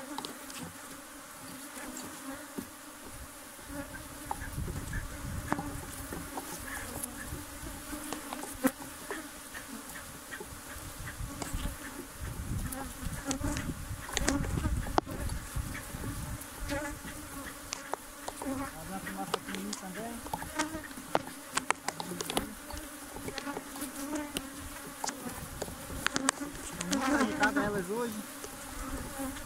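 Dense, steady buzzing of a defensive honeybee colony swarming around its opened hive, with scattered clicks and knocks.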